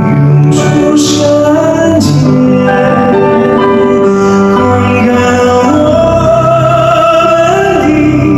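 Live performance of a Mongolian grassland-style ballad: a male singer holding long, slightly wavering notes over instrumental accompaniment. It is an audience recording of a sound system, so the sound is a little unclear.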